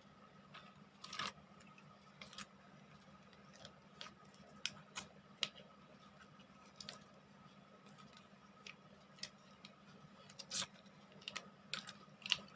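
Faint, scattered clicks and small ticks from a plastic sachet of Komix OBH cough syrup being handled: snipped open with scissors and drunk.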